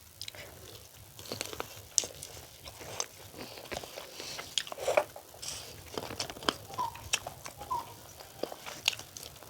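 Close-up eating sounds of a person chewing spicy chicken skin curry: irregular wet smacks and clicks of the mouth, several a second.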